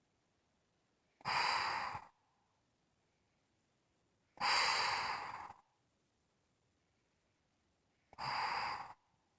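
Unusual-sounding snoring: three breathy, hissing breaths about three and a half seconds apart, each lasting about a second and starting abruptly.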